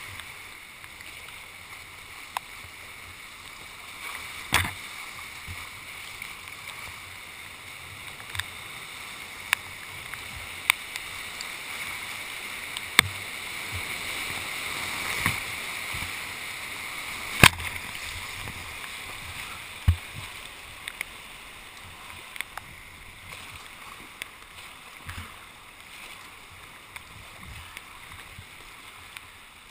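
Whitewater rapids rushing around a kayak running a river gorge, with sharp knocks and splashes every few seconds. The rush swells to its loudest about halfway through as the kayak drops through a rapid under a bridge, then eases off.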